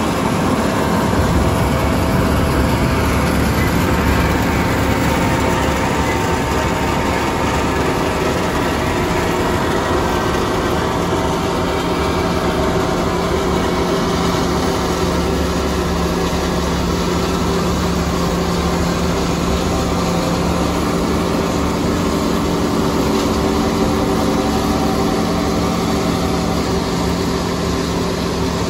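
Diesel engine of heavy farm machinery running steadily, with an even hum and rumble that hardly changes.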